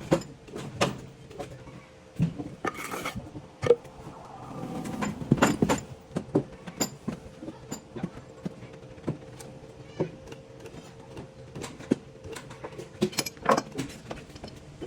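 Irregular knocks and clatters, with a brief hiss about three seconds in and a busier stretch of knocking around the middle, over a faint steady hum.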